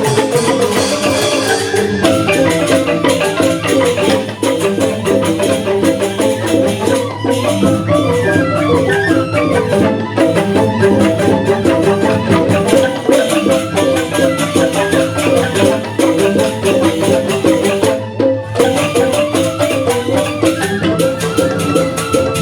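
Balinese joged bumbung gamelan: bamboo xylophones (grantang) playing fast interlocking mallet patterns with percussion. The music drops out for a moment about three-quarters of the way through.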